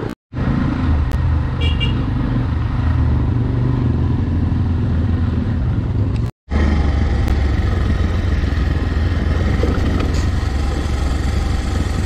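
Motorcycle engine running steadily while riding, with wind and road noise. The sound cuts out completely for a moment twice, once just after the start and once about six seconds in.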